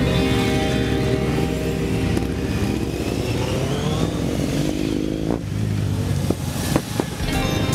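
A column of motorcycles riding past at low speed, several engines running together. One engine's pitch rises as it accelerates about halfway through, and there are a couple of sharp clicks near the end.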